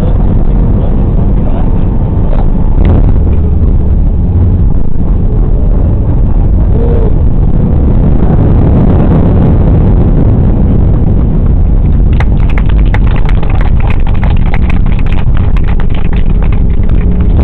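Loud, steady rumble of an Airbus A321-211 cabin during landing, heard through a cheap camera's microphone. About two-thirds of the way in, a run of rattling and clicking starts and keeps going.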